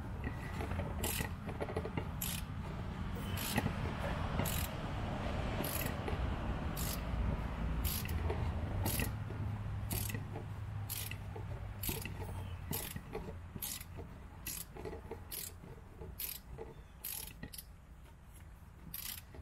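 A ratchet wrench clicking in a steady back-and-forth rhythm, about two clicks a second, over a rough grinding rub, as a tight, rusted sway bar end link nut is slowly worked off.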